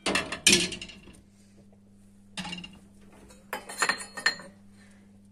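A glass pot lid clinking and clattering as it is lifted off a steel cooking pot and set down, then a few more clinks of a stainless steel ladle against the cookware.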